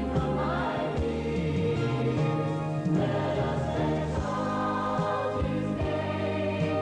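A choir singing with instrumental accompaniment, sustained notes over a moving bass line.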